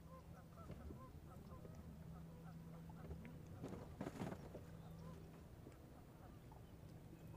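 Waterfowl calling faintly, many short calls scattered throughout, over a steady low hum that stops about five and a half seconds in. A brief rushing noise about four seconds in is the loudest moment.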